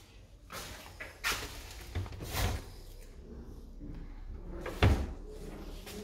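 A few knocks and bangs of kitchen cupboard doors, the loudest a sharp bang just before five seconds in.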